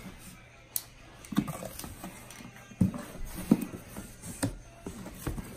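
Cardboard shipping box being opened by hand: the flaps folded back and the packing inside handled, giving a few irregular soft thumps and scrapes of cardboard.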